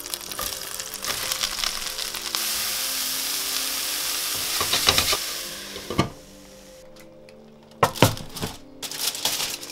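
Shredded cabbage sizzling loudly in a hot pan as it is tipped in and tossed with tongs; the sizzle dies down about six seconds in. Near the end come a couple of sharp knocks and rustling as a foil-covered roasting tin is handled.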